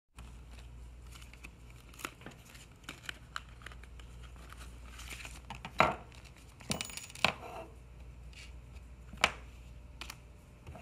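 A clear plastic parts bag crinkling and rustling as it is handled and opened, with several sharp clicks and taps, the loudest about six and nine seconds in.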